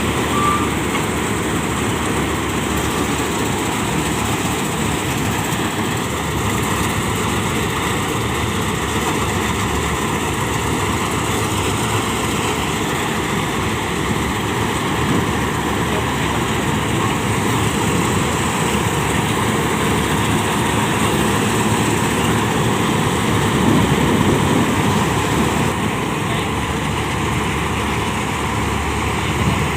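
Heavy farm machinery running steadily: a dense, unbroken mechanical noise that swells a little about 24 seconds in.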